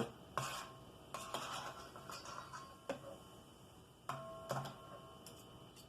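A few light clinks and taps of kitchen utensils and containers, spaced out, two of them near the end ringing briefly.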